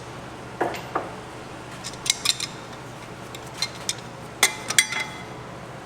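Metal tools and brake parts clinking and tapping during work on a front brake caliper, a scatter of sharp clicks with a short cluster of ringing clinks about four and a half seconds in.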